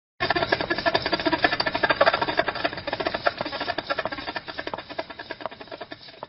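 A car wheel spinning, making a dense, rapid clicking rattle that starts suddenly and gradually dies away.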